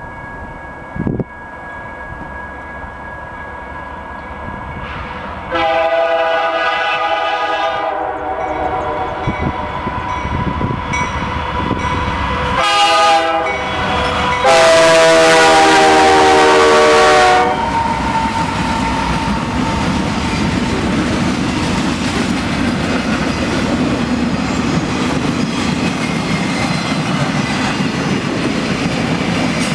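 Canadian Pacific diesel locomotive approaching and passing, sounding its air horn three times: a long blast, a short one, then the longest and loudest blast as it goes by. After that comes the steady rumble of the locomotives and the wheels of loaded flatcars on the rails, with a brief sharp knock about a second in.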